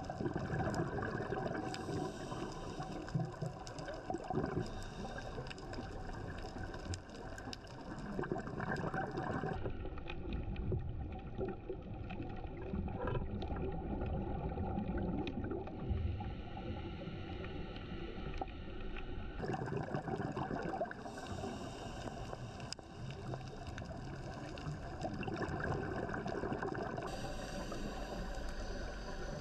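Underwater noise picked up by a dive camera: a steady, muffled wash of water sound. Its tone shifts abruptly about ten seconds and twenty seconds in.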